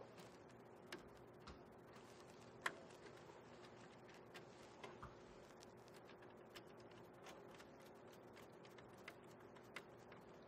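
Near silence with scattered faint clicks and taps of a control wire being handled and fitted into a variable frequency drive's terminal block, the sharpest click about two and a half seconds in, over a faint steady hum.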